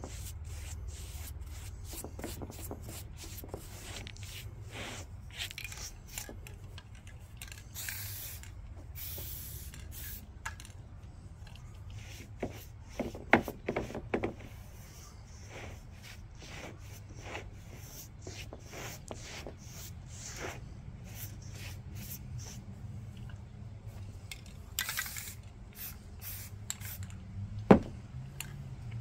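Aerosol spray paint cans hissing in short bursts, with longer bursts about eight seconds in and again near twenty-five seconds. Between them are handling sounds: clicks, knocks and rubbing on the wood, over a low steady rumble.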